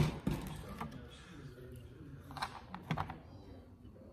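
A handful of separate small clicks and knocks as a cordless drill is set down and armrest parts are handled on a workbench tray, the sharpest knock at the very start.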